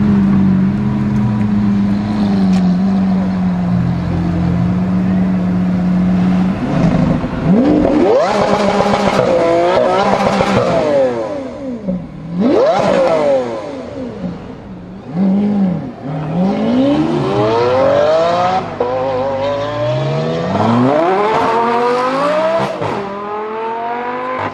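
Lamborghini supercar engines, chiefly an Aventador's V12: a steady low engine note for about six seconds, then a run of hard accelerations, each a rising rev that drops sharply at the gear change, with short throttle blips in between.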